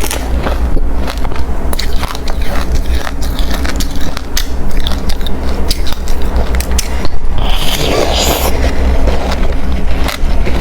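Close-miked biting and chewing of hard refrozen crushed ice: rapid, loud crunches and cracks throughout, with a denser burst of crunching about eight seconds in.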